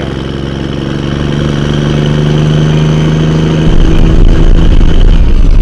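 Vehicle engine running, growing steadily louder. About three and a half seconds in, music with a heavy, pulsing beat comes in and takes over.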